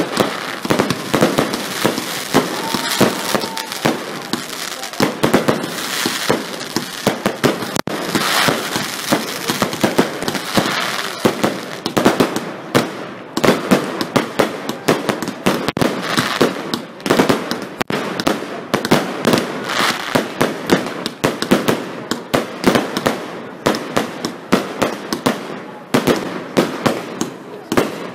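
Aerial fireworks display going off in a dense, unbroken run of bangs and crackles as shells burst overhead.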